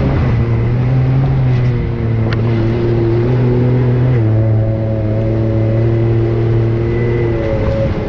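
Side-by-side UTV engine running at a fairly steady moderate speed, its pitch stepping down slightly about halfway through.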